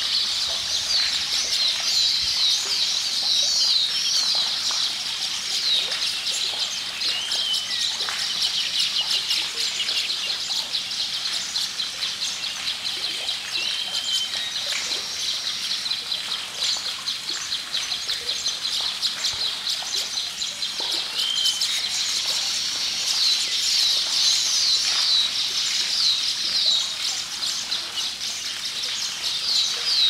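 Baya weavers chattering: a continuous stream of rapid, high chirps, with a short lower whistle now and then.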